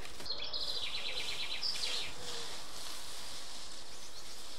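Garden birdsong over steady outdoor background noise: a small songbird gives one fast trill in the first two seconds, while a pigeon coos softly and low underneath.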